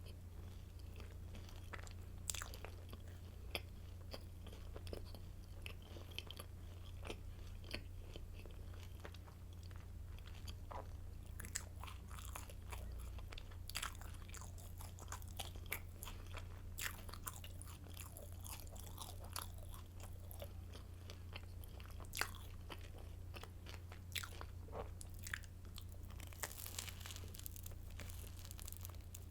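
Hard, crisp garlic stick baguette being bitten and chewed close to the microphone: irregular sharp crunches scattered throughout, over a steady low hum.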